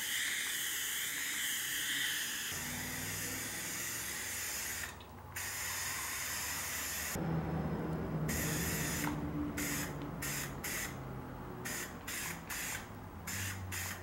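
Aerosol spray-paint can hissing as chassis paint is sprayed on: long sprays broken by two short pauses, then a string of short bursts in the second half.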